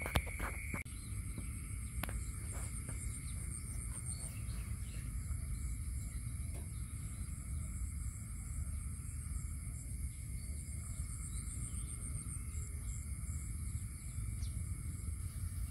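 Outdoor ambience of insects: steady high-pitched chirring with a fast pulsing trill that comes and goes, over a steady low rumble, with a few soft clicks near the start.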